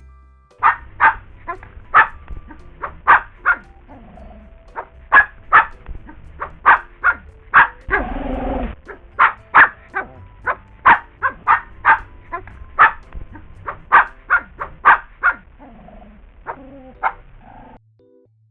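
A dog barking over and over, short sharp barks about two a second, with one longer, rougher burst about eight seconds in; the barking stops shortly before the end.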